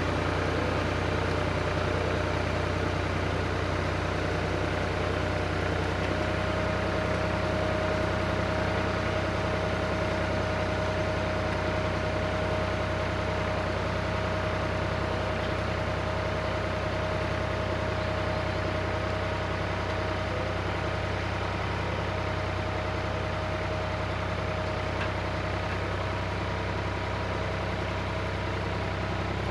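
Tractor engine running at a steady speed, a constant low drone with a steady whine above it.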